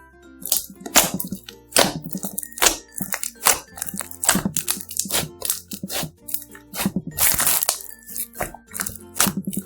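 Slime being squeezed and poked, making sharp popping and crackling sounds about once a second, with a longer crinkling stretch near the end, over light background music.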